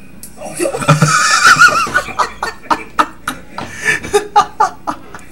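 A man laughing hard: a high, wavering squeal of laughter about half a second in, then a quick run of short laughing bursts, about four or five a second.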